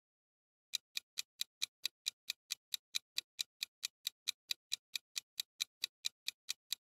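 Countdown timer ticking sound effect: an even run of sharp clock-like ticks, about four and a half a second, starting about three quarters of a second in, marking the seconds left to answer a quiz question.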